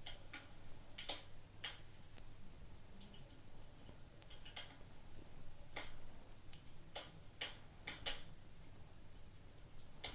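Wood fire crackling, with sharp pops at uneven intervals over a faint steady low rumble.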